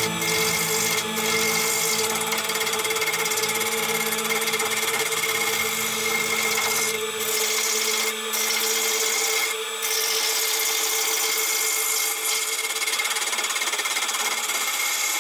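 Wood lathe running with a gouge cutting into a spinning spalted hickory blank: a steady motor whine under the rasping of the cut, which drops out briefly a few times as the tool eases off.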